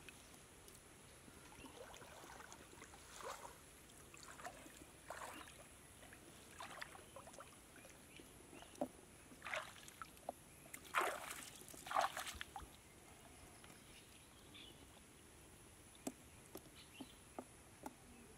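Light water splashes, drips and sloshing in shallow muddy water as a wet fishing net is pulled up by hand, with the loudest splashes a little past the middle.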